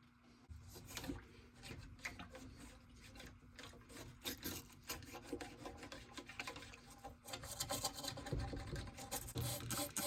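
Irregular scraping and rubbing with scattered clicks, getting louder about seven seconds in.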